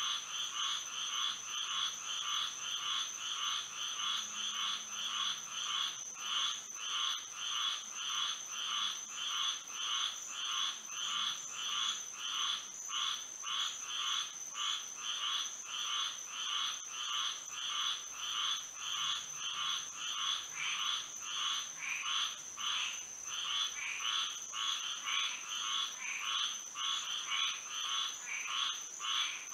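A night chorus of many frogs calling over and over in a steady, overlapping rhythm, with a steady high-pitched tone running above it.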